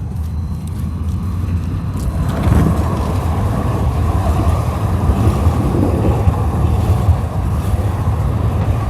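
Low, steady rumble of city street traffic mixed with wind buffeting the microphone.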